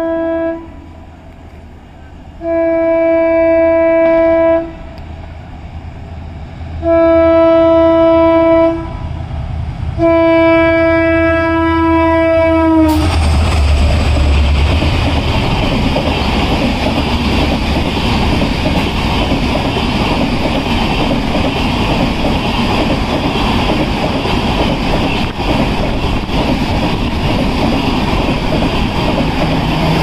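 An EMD WDP4D diesel locomotive's horn sounds. The tail of one blast is followed by three long blasts of about two seconds each, and the last one drops in pitch as the locomotive passes close by. The passenger coaches then rush past with a loud, steady rolling roar and wheel clatter on the rails.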